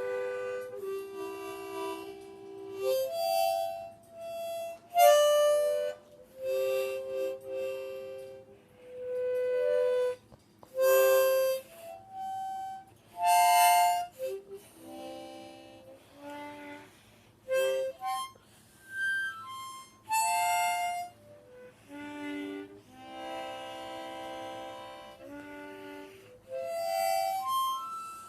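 Harmonica played by a beginner: a halting run of single held notes and chords, some bent or sliding, with short pauses between them.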